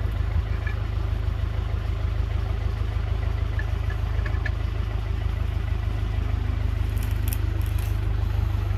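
Case International 845 XL tractor's diesel engine idling steadily, with a few light clicks near the end.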